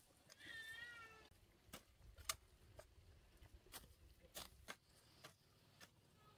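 Metal hoe chopping into dry, stony soil while earthing up young maize plants: sharp, faint strikes every half-second to second and a half, the loudest about two seconds in. Near the start, a brief wavering animal call lasts about a second.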